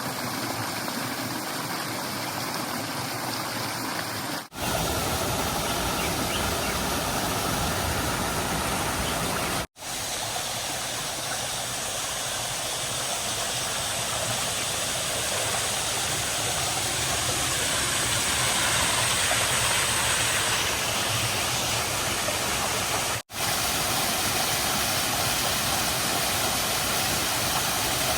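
Rushing water of a rocky stream and waterfalls, a steady roar of noise broken by three brief, abrupt dropouts.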